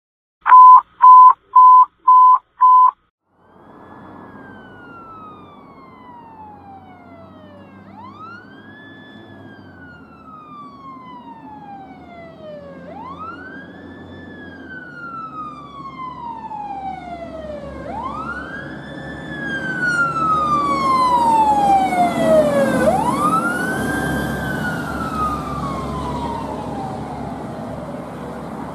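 Five short, very loud electronic beeps at one pitch, then a 2003 Seagrave Marauder fire truck's siren wailing as the truck approaches. Each wail rises quickly and falls slowly, about every five seconds, growing louder to a peak about three-quarters of the way through and then easing off, over the low sound of the engine.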